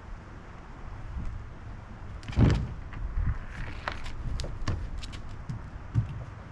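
Rotomolded plastic kayak hull knocking and scraping against a Yakima ShowBoat roof rack as it is lifted and pushed up onto it: one loud knock about two and a half seconds in, then scattered clicks and knocks, with another knock near the end.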